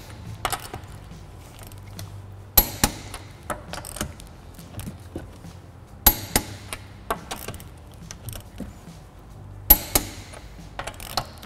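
Click-type torque wrench tightening wheel lug nuts to 80 ft-lb: three sharp clicks about three and a half seconds apart as each nut reaches its set torque, with lighter metal clinks of the socket and ratchet between them.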